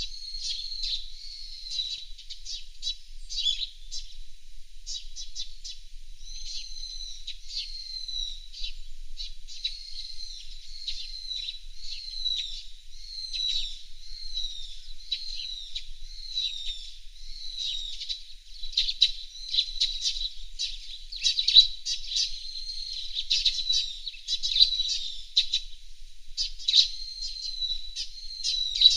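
Small songbirds chirping continuously, a run of short high notes repeated about every second with quick sharp ticks between them.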